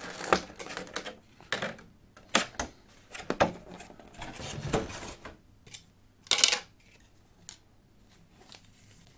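Cardboard trading-card collection box being unpacked by hand: scattered clicks, taps and rustles of cardboard and packaged cards, with a louder rustle about six and a half seconds in.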